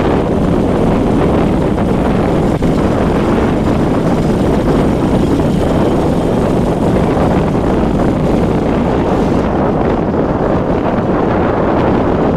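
Wind buffeting the microphone: a loud, steady rumbling rush with no distinct events.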